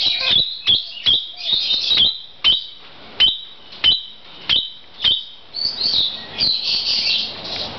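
Red-crowned parakeet (kakariki) calling: a string of sharp, high notes, each running into a brief held whistle, about two a second. Near the end it breaks into quicker chattering.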